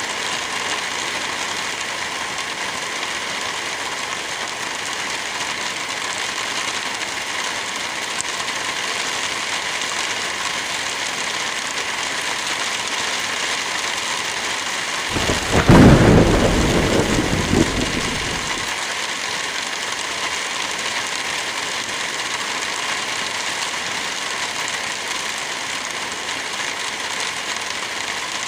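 Steady heavy rain falling. About halfway through, a single clap of thunder breaks out and rumbles away over about three seconds.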